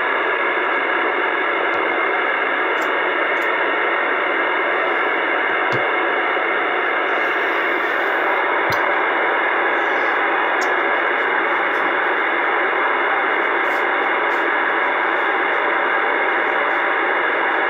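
Steady hiss of AM static from a CB radio's speaker, with no station readable through it, and a few faint ticks.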